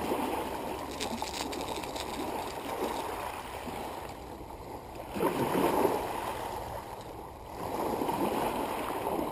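Small waves washing up on a shell-and-pebble beach, the wash swelling about five seconds in and again near the end.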